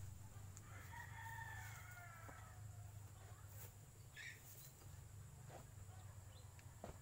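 A rooster crowing once, faint, starting about a second in and lasting about a second and a half.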